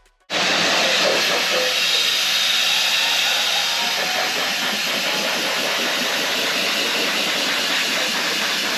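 A loud, steady hiss that starts suddenly about a third of a second in and holds evenly throughout.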